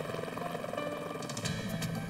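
Background music over the rapid rotor chop of a Coast Guard helicopter. A low drone with a run of high ticks comes in near the end.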